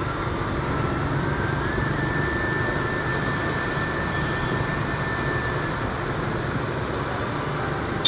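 Motorbike ride in city traffic: the bike's engine running steadily under road and wind noise, with a faint high steady whine for a few seconds in the middle.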